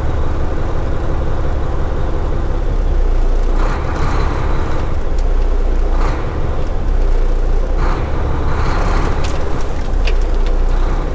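Semi truck's diesel engine running with a steady low drone, heard from inside the cab as the truck creeps forward. Several bursts of hissing come over it partway through.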